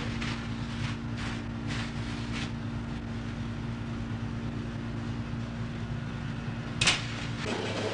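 Steady low mechanical hum of commercial kitchen equipment. A few faint scrapes in the first two or three seconds as a peel works in a deck oven, and one sharp clatter near the end.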